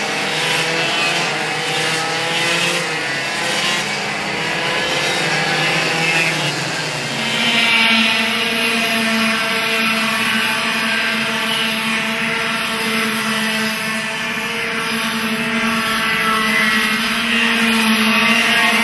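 Several racing kart engines running at high revs as a pack of karts laps the track, their overlapping pitches rising and falling. About seven seconds in, the sound shifts to a steadier, even engine drone.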